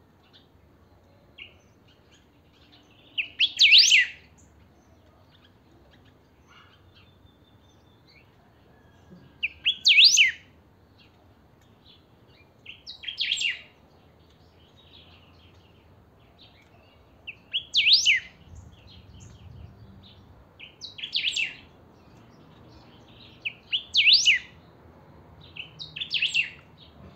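A caged songbird singing: seven short, loud phrases of quick sweeping notes, repeated every few seconds.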